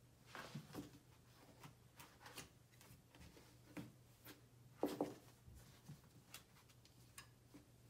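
Faint scattered taps and scrapes of a small puppy's paws and claws moving on a hardwood floor, with a louder double knock about five seconds in. A faint steady hum lies underneath.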